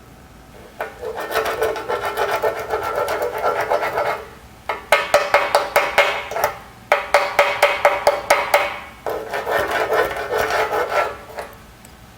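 Electric arc welding on steel: the arc crackles and sputters in four runs of a few seconds each, with short breaks between them as the welder stops and restarts the bead.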